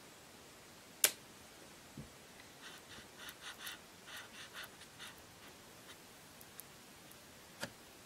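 Marker nib scratching on paper in a run of short back-and-forth colouring strokes, after a single sharp click about a second in; another small click near the end.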